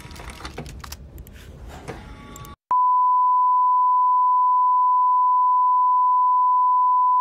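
A single steady electronic beep tone, one unwavering pitch, that cuts in abruptly nearly three seconds in and holds without change. Before it there is only faint background noise with a few soft clicks.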